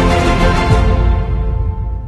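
Background music, fading out near the end.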